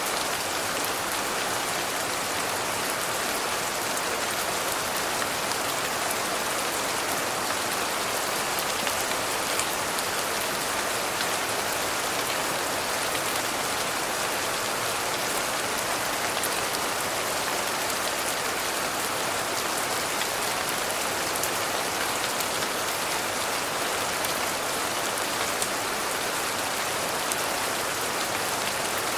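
Steady rain falling: an even hiss with faint drop ticks scattered through it.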